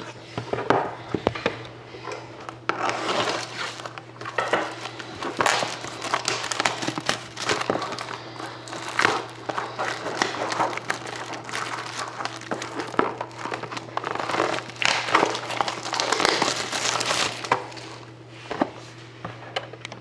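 Plastic shrink-wrap being cut and pulled off a sealed box of trading cards, crinkling and crackling irregularly, thinning out near the end.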